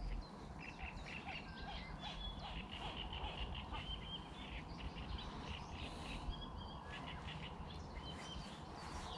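Small birds chirping and singing in a string of short, high calls, faint, over a low steady rumble.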